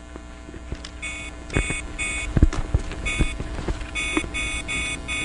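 Mobile phone keypad tones: a run of short electronic beeps at an uneven pace, as of a number being dialled, with a few soft knocks among them.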